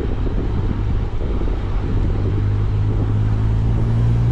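Wind and road noise on a handlebar-mounted camera while a road bike rides along a tarmac street, with a steady low engine hum from traffic close by that grows a little louder near the end.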